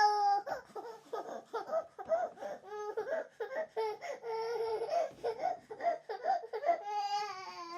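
A young child laughing in quick, repeated bursts for about six seconds, with a brief held wail at the start and a drawn-out, slightly falling cry near the end.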